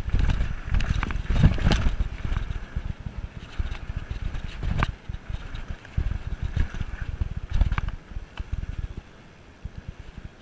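Mountain bike rolling over sandstone slickrock, heard through an action camera: wind buffets the microphone in a gusty low rumble, with scattered sharp knocks and rattles from the bike over the rock. It quietens for a couple of seconds near the end.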